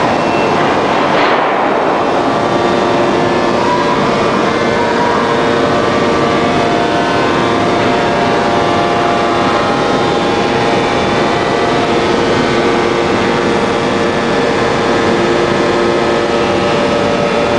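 Hydraulic machinery of a 1250-ton open-die forging press running: a loud, steady mechanical din with several steady humming tones. A brief rush of noise comes about a second and a half in.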